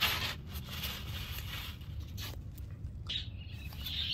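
Light rustling and scraping handling noises, a few short scrapes over a low steady background rumble.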